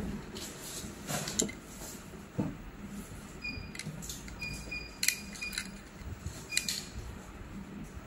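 Hard plastic Lego parts being handled: clicks and knocks as a cable connector is pressed onto the terminal of a Lego Power Functions battery box, with a few brief high squeaks around the middle.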